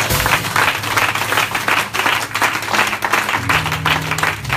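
A congregation claps and applauds in rapid, dense hand claps. A low steady tone sits underneath and steps up in pitch about three and a half seconds in.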